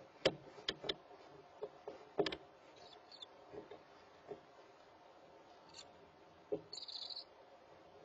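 Knocks and scuffs of barn owl owlets shifting about in a wooden nest box, several in the first couple of seconds and one more later, with a short high-pitched chirp near the end.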